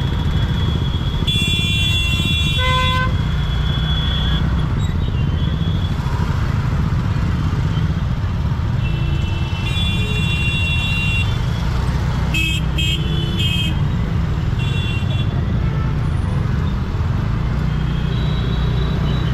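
Dense city traffic of motorcycles, scooters and cars with a steady low engine rumble, and vehicle horns honking again and again: a long blast about a second in, more honks around the middle including three quick toots.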